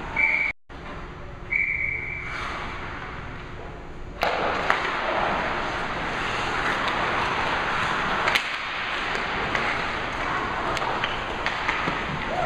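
Hockey referee's whistle blown twice in short blasts near the start. From about four seconds in, ice-rink game noise: skates scraping on the ice, with sharp clacks of sticks and puck.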